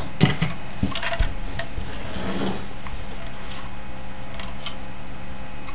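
Small plug-in electronics module being handled and its black cover worked off by hand: scattered light clicks, taps and scrapes over a steady low hum.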